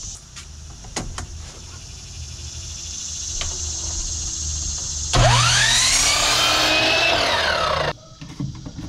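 Miter saw motor spinning up about five seconds in and running for under three seconds, its pitch rising at the start and sagging toward the end as it cuts a 45-degree angle in trim; it cuts off abruptly. Before it, a few light clicks and knocks.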